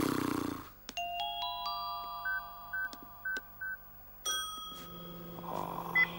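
Cartoon music plays a rising run of bell-like notes, then four short electronic beeps sound like keypad presses on a microwave oven. About five seconds in, the microwave starts up with a steady hum, and a short beep follows near the end.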